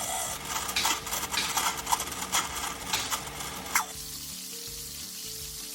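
Car engine running with an abnormal crackling, clicking noise that the customer likens to a video game. The crackle stops about four seconds in, leaving a steady hiss.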